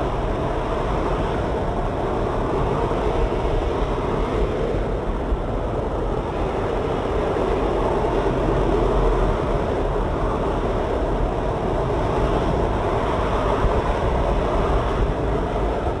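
Steady traffic noise from a multi-lane motorway, the tyres and engines of passing cars blending into one continuous wash without breaks.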